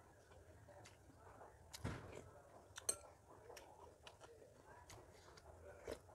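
Faint close-miked eating sounds: quiet chewing and mouth noises over a low room hum, broken by scattered small sharp clicks, the loudest about three seconds in.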